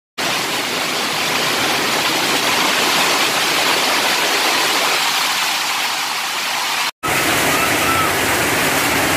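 Hail and heavy rain pouring down onto grass and ground, a dense steady hiss. It drops out for a moment about seven seconds in, then carries on.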